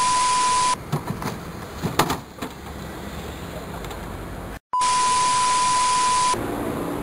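TV static transition effect: loud hiss with a steady 1 kHz test-tone beep, cut in and out sharply, heard twice. Between the two bursts, quieter background noise with a few sharp knocks about one to two seconds in.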